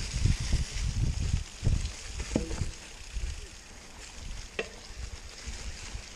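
Mountain bike rolling along a leaf-covered forest singletrack: a steady hiss and crackle of tyres over dry leaves, with irregular low thumps from bumps in the trail, loudest in the first two seconds, and a couple of sharp clicks.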